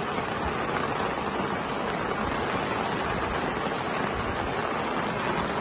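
Heavy rain falling: a steady, even hiss of a downpour.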